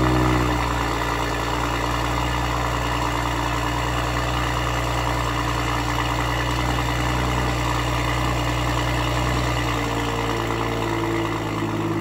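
BMW M340i's turbocharged 3.0-litre inline-six heard at the exhaust tips just after a start: the start-up flare falls away in the first half second into a steady fast idle, which drops a little lower about ten seconds in.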